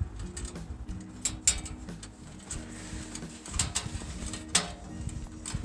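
Hand tools clicking and knocking on the steel hardware of a bandsaw mill's saw head while its adjustment bolts are turned in: a few sharp metallic clicks, the loudest about a second and a half in and two more near the end.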